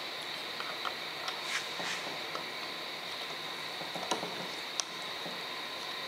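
Small clicks and taps of metal engine parts being handled as a piston is fitted onto a connecting rod in a two-stroke jet ski crankcase, with a couple of soft rustles, over a steady hiss with a faint high tone.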